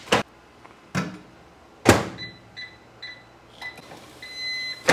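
Over-the-range microwave oven: a couple of light knocks and the door shutting about two seconds in, then four short keypad beeps as the cook time is set. Near the end comes one longer beep as the display reads End, the signal that the cycle is finished, followed by the click of the door release.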